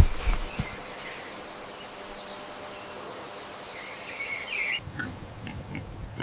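Steady outdoor background hiss with a short bird chirp about four seconds in, after a brief knock at the very start.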